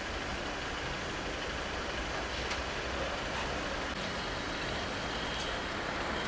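Steady, even background noise with a few faint clicks or knocks.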